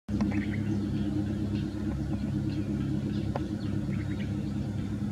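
A steady low engine hum, with faint short high chirps now and then over it.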